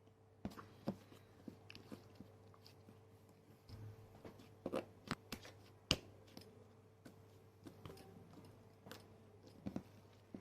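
Slime being stretched and squeezed by hand, giving irregular small sticky clicks and squelches, the loudest about six seconds in.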